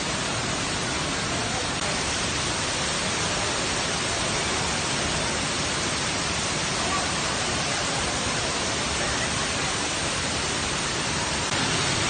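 Waterfall's steady rushing of falling water, a dense even hiss with no change in level.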